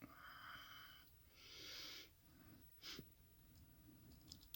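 Near silence: faint breathing close to the microphone, with one small click about three seconds in.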